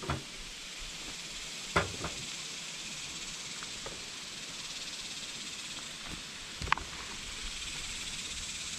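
Rain falling steadily through the trees, a constant hiss, with a few sharp knocks about two seconds in and again near seven seconds.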